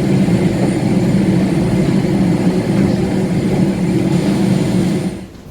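Steady engine noise of an Airbus A320 heard inside the cabin, running at low power after landing; it cuts off sharply about five seconds in.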